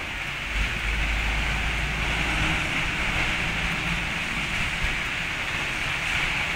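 Heavy rain pouring down in a cloudburst, a steady hiss of rain on paving, with a low rumble for a couple of seconds near the start.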